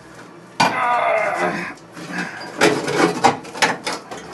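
Old sheet metal on a 1974 Plymouth Duster's floor being worked loose from its spot welds by hand. About half a second in there is a sudden, drawn-out pitched sound lasting about a second. From about the middle onward comes a rapid string of metal clanks and knocks.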